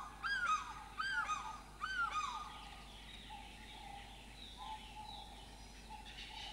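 African fish eagles calling: a series of loud ringing yelps, each rising and then falling, in quick succession for the first two seconds or so, then fainter calls.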